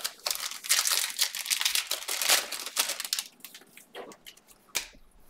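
Trading-card pack wrappers being handled and torn open: a dense crinkling and crackling rustle for about three seconds, then scattered rustles and clicks, with a sharper crackle near the end.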